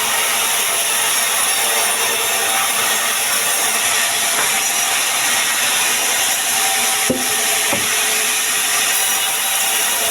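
Sawmill saw cutting through pine: a loud, steady rasp of the blade in the wood, with two short knocks a little over halfway through.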